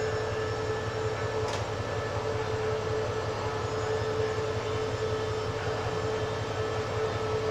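SRT CDA5B1 diesel-electric locomotive idling at a standstill: a steady engine hum over a low, even throb.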